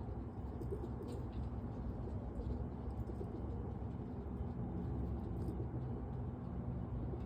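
Roller pigeons cooing in their loft over a steady low hum.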